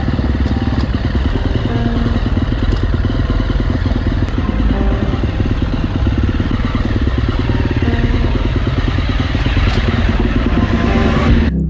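Husqvarna 350 FC dirt bike's single-cylinder four-stroke engine running steadily, its exhaust pulsing fast and evenly as the bike is ridden over rocky ground.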